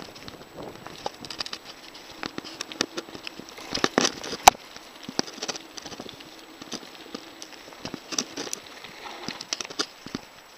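Mountain bike rattling and clattering over a bumpy dirt trail: irregular knocks and clicks from the frame, chain and tyres, with one sharp knock about four and a half seconds in.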